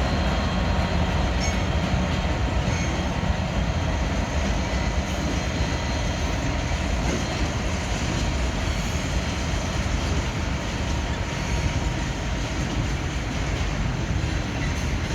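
A train running through the station: a steady, continuous noise of engine and wheels on the track.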